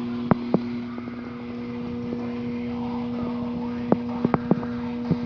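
Metal tool box drawers being handled: sharp clicks and knocks, two near the start and a cluster of about five from four seconds in, over a steady low hum.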